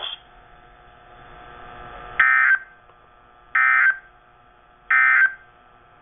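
EAS/SAME end-of-message data bursts from NOAA Weather Radio, played through a Sangean weather radio's speaker. After a light hiss there are three identical short, buzzy digital bursts about a second and a half apart, marking the end of the flood warning broadcast.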